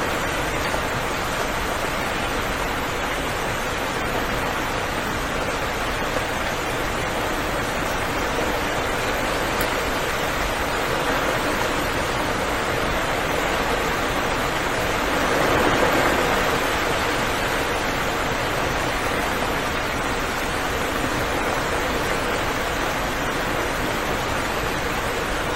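Steady rain falling in a dense, even hiss, swelling briefly about two-thirds of the way through.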